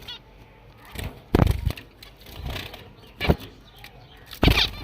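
Three knocks and rattles from a finch cage being handled, the last the loudest.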